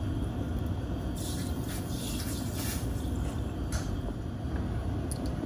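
Gas stove burner running under a stainless steel pan of milk being heated to the boil: a steady low rumble with a faint hiss and a few faint light crackles.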